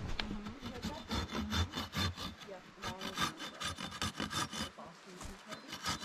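Folding pruning saw cutting into a green wooden pole in quick back-and-forth rasping strokes, with a couple of short pauses. It is cutting a notch so that a crossbar locks in place.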